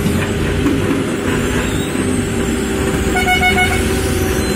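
Diesel engines of Hydra mobile cranes running steadily while they shift a boat. About three seconds in, a horn sounds in a short run of quick pulses.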